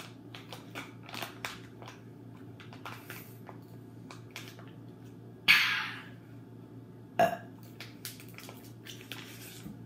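A boy's loud, raspy burp about five and a half seconds in, followed by a shorter one at about seven seconds, after drinking from a can; small mouth and handling clicks in between.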